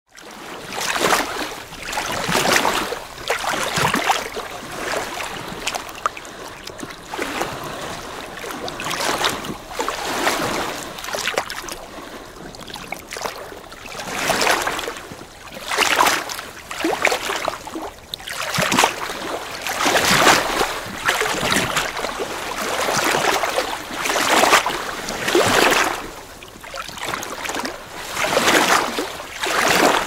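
Small waves lapping and splashing on a lake shore, one wash after another every second or two, uneven in strength.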